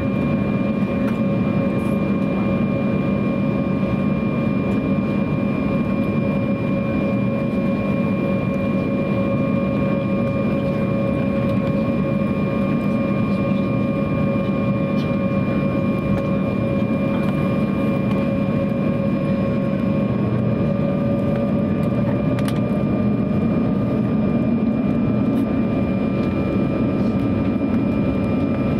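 Cabin noise inside an Embraer 190 on the ground, its two General Electric CF34-10E turbofans at idle: a steady rumble with a high engine whine at a few fixed pitches. The whine shifts slightly about twenty seconds in, with a new tone joining shortly after, as the aircraft begins to taxi.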